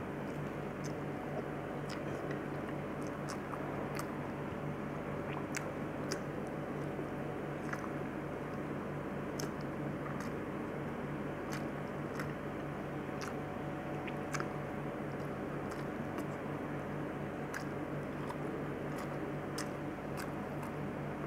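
Close-up chewing and mouth sounds of a person eating a rice and macaroni meal by hand, with scattered short sharp clicks, over a steady low background hum.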